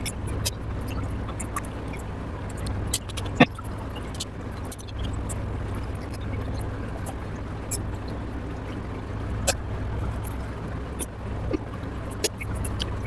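Close-up eating sounds: scattered sharp wet mouth clicks and smacks while chewing, over a steady low hum.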